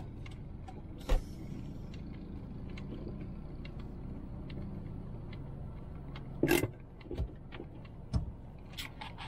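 Car driving slowly, heard from inside: a steady low rumble of engine and road noise with scattered small clicks and rattles, and louder knocks about a second in, about six and a half seconds in and about eight seconds in.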